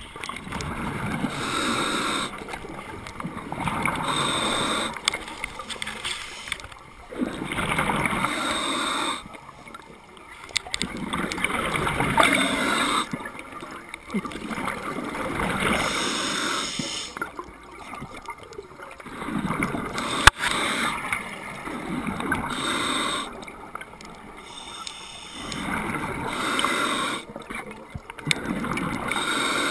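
A scuba diver's regulator heard underwater: bubbling exhalations in bursts every few seconds with quieter gaps between. One sharp click about twenty seconds in.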